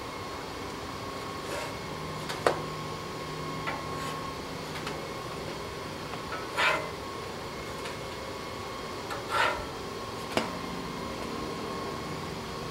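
Pancakes cooking on a Blackstone propane griddle: a steady hiss, with two sharp clicks and two short, noisy scrapes or rustles.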